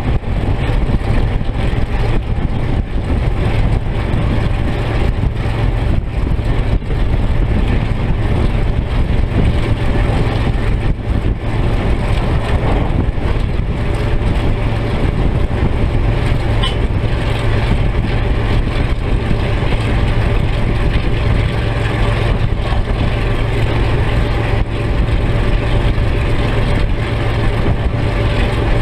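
EMD 567 twelve-cylinder diesel engine of an NZR Da-class locomotive running steadily under power as the locomotive travels, a deep, unbroken engine drone mixed with running noise.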